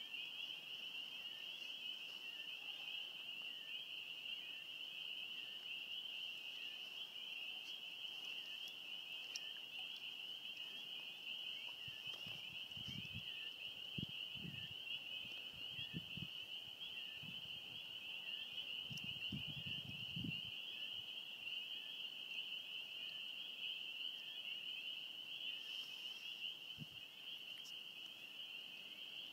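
A steady, high-pitched chorus of calling animals, an unbroken shrill trill. Several low thumps on the microphone come between about 12 and 20 seconds in.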